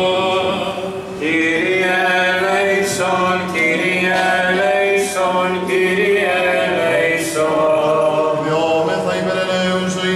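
Byzantine chant by male voices: a slow, drawn-out melodic line sung over a steady held drone note (the ison).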